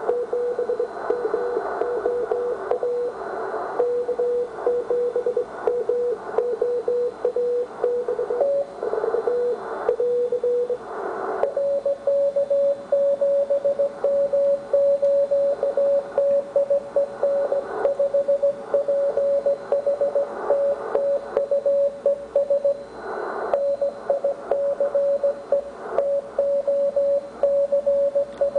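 Morse code received on the 80-metre amateur band through a Ten-Tec 1380 QRP transceiver: a single pitched tone keyed into dots and dashes over band hiss. About a third of the way through, a short burst of noise is followed by a slightly higher-pitched tone keying on, as the receiver is tuned onto a different station.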